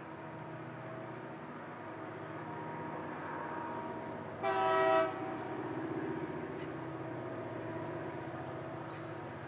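Diesel freight locomotives working up the grade, their engines giving a steady drone. About halfway through the lead locomotive sounds its horn in one short blast, a chord of several tones lasting about half a second.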